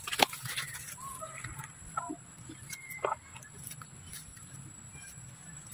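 Macaques in dry leaf litter: a few short, faint squeaks and chirps, with two sharp clicks, one at the very start and one about three seconds in.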